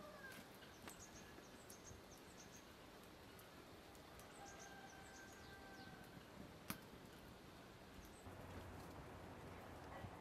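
Near silence: faint rural outdoor ambience with small high bird chirps now and then, and a single sharp click about two-thirds of the way through.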